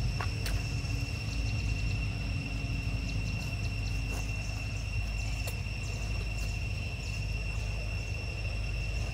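A steady, unbroken high-pitched insect drone, with a low rumble underneath and a few faint clicks.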